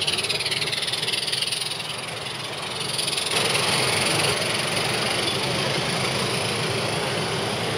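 G-scale live steam model locomotive running, with a steady hiss of steam. It gets louder and brighter about three seconds in.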